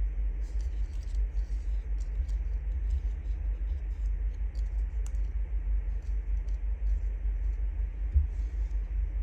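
Steady low rumble, with faint rustles and clicks of small paper labels being handled and swapped on a table, and a single thump near the end.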